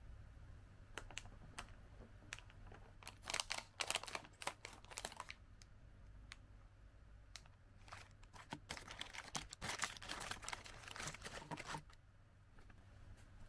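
Plastic snack packaging crinkling in two bursts, with a few light ticks before them: a plastic biscuit bag being opened and its individually wrapped packets tipped out onto a plate.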